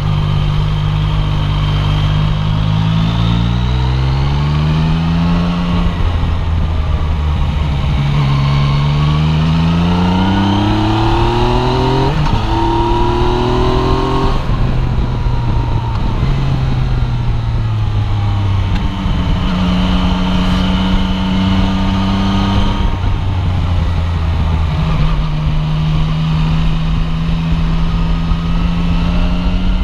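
Yamaha Tracer 900's inline-three engine on the move, rising in pitch three times in quick succession as it pulls through the revs and gears. It then drops back and holds a steadier, lower pitch, all under steady wind noise.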